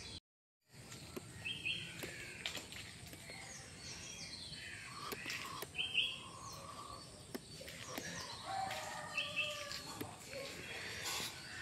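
Birds chirping and calling in short, repeated phrases over a steady outdoor background hiss. The sound drops out completely for about half a second just after the start.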